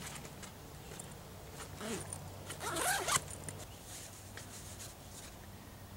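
Zipper on a bag being pulled open, with rustling as something is taken out; the loudest rasp comes about three seconds in.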